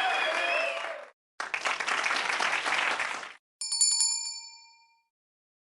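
Two short bursts of crowd applause, then a single bright bell ding that rings on briefly and fades out.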